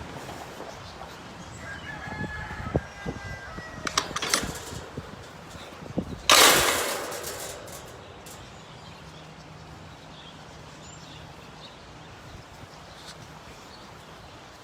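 A rooster crowing, faint, about two seconds in. A loud sudden blast of noise comes about six seconds in and fades over a second or so.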